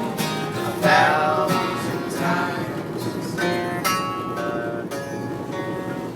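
Acoustic guitar music from a song, with strummed and picked notes that ring and fade.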